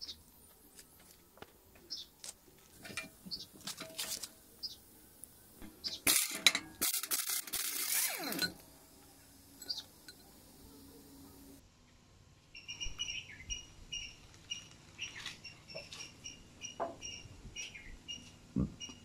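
Rusty steel motorcycle parts clinking and knocking as they are handled and set down on a concrete floor, with a couple of seconds of scraping about six seconds in. In the second half, a high chirp repeats steadily about twice a second.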